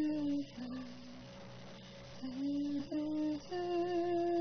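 A lone voice humming a melody without words in long held notes, with a short pause about a second in.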